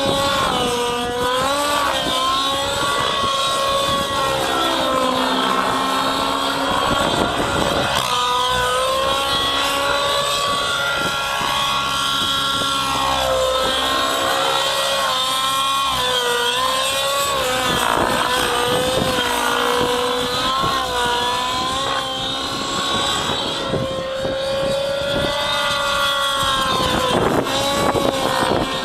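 Align T-Rex 700 nitro RC helicopter flying 3D aerobatics: its two-stroke glow engine and rotor give a loud, steady high whine. The pitch repeatedly sags and climbs back every few seconds through the manoeuvres.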